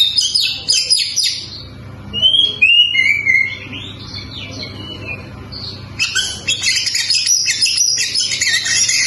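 Oriental magpie-robin (kacer) singing a varied song of sharp rapid notes and clear slurred whistles. There are dense twittering bursts at the start and again from about six seconds in.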